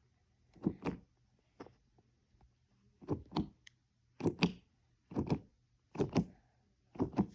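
A cat knocking a plastic fidget toy about: short double knocks, a pair roughly every second.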